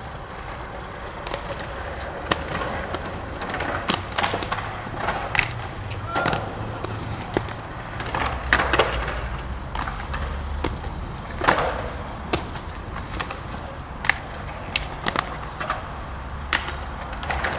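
Inline skate wheels rolling over stone paving, a steady low rumble, broken by many irregular sharp clacks and knocks of skates hitting the ground and ledges.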